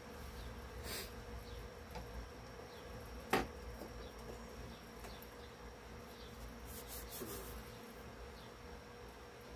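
A steady, faint buzzing hum holding one even tone, with a single sharp click about three and a half seconds in.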